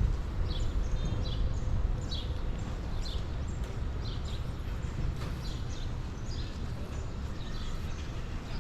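Footsteps walking on beach sand, a short high squeak at each step, about one step a second, over a steady low rumble.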